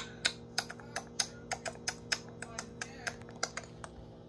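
A rapid, irregular series of sharp clicks, about five a second, over a faint steady hum.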